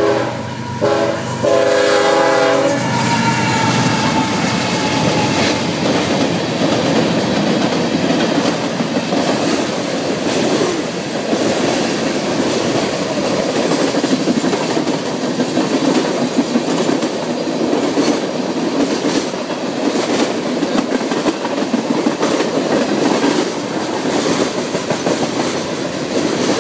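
Diesel freight locomotive sounding its horn in a few blasts over the first three seconds, then the freight train's steel wheels clattering over the rail joints as tank cars and covered hopper cars roll past close by, a loud steady rumble with rapid clicks.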